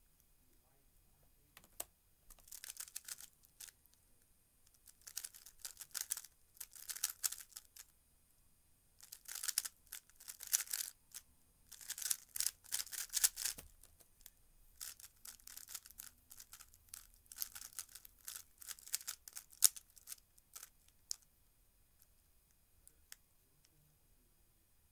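A plastic 3x3 speedcube being turned fast by hand, a rapid clacking rattle of turns. The turns come in bursts of one to two seconds with short pauses between them, and stop about 21 seconds in.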